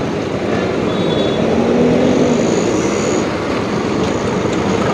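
Street traffic at a road junction: a steady rumble of vehicle engines as a bus crosses close by.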